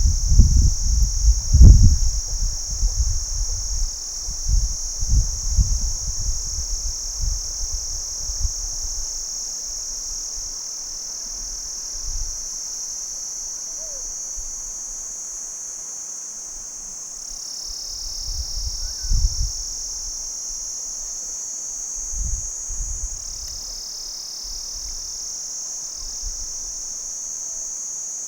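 A steady, high-pitched chorus of crickets chirping. Low rumbles and thumps sit under it, loudest in the first few seconds and returning briefly about two-thirds of the way through.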